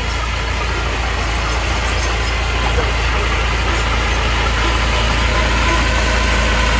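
A heavy machine's diesel engine running steadily, with a deep rumble.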